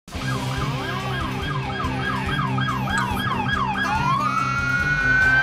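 Police car siren yelping in fast rising-and-falling sweeps, about three a second, then switching near four seconds in to a slow rising wail.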